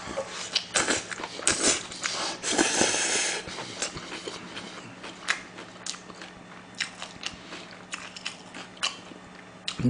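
Close-miked wet chewing of a mouthful of thin wheat noodles (somyeon) with spicy whelk salad, with many small mouth clicks and smacks and a longer noisy stretch about two and a half seconds in.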